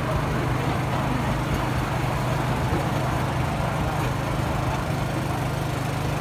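Ride train's engine running with a steady low drone while the train moves along.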